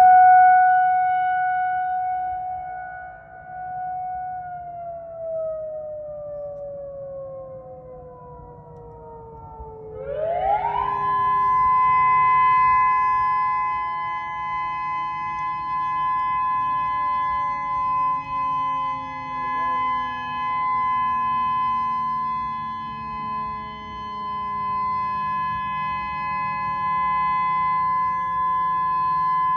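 Outdoor warning sirens during a monthly test. One siren holds a steady tone, then winds down, falling slowly in pitch from about four seconds in. About ten seconds in, a second siren winds up quickly to a higher steady tone and holds it while the first keeps sliding lower.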